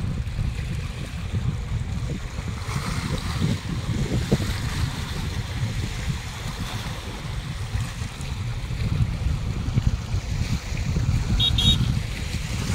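Wind buffeting the phone's microphone in a steady, gusty rumble, over small waves lapping and washing against a rocky embankment. A brief high chirp is heard near the end.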